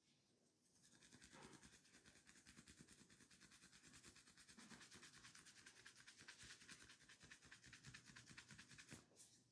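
Faint, fast rubbing strokes of massaging hands on skin, many to the second in an even rhythm. They start about a second in and stop just before the end.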